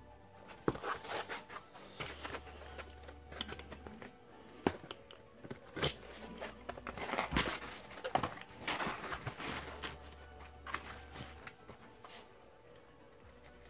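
Utility knife blade slicing through a foam wing panel: a run of irregular scratchy cutting strokes, busiest past the middle and dying away near the end.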